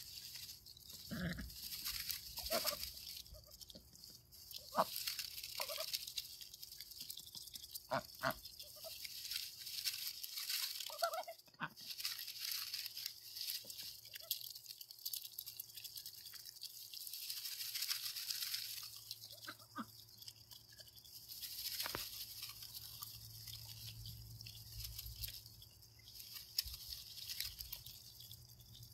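Domestic ducks giving scattered short, soft quacks and murmurs while they peck and rustle through the shredded Easter grass of a treat basket. A steady high hiss runs behind them.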